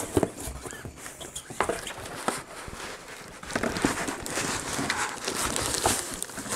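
Cardboard box and foam packing rustling and scraping as a packed unit is pulled out of the box. A few light knocks come in the first couple of seconds, and the scraping gets denser near the end.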